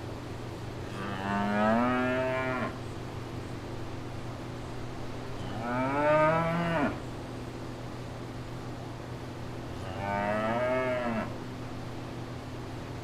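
Cattle mooing: three moos about four seconds apart, each lasting about a second and a half, over a steady low hum.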